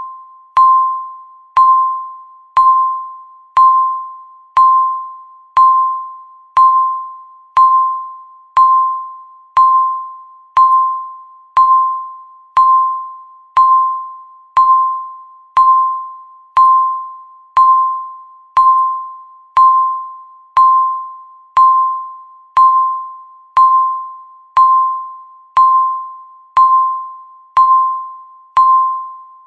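Countdown timer beeping once a second: a single-pitched electronic beep with a sharp click at the start, fading away before the next one.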